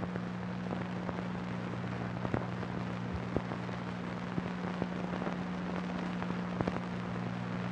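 Old film soundtrack noise: a steady low hum under a hiss, with scattered crackles and pops.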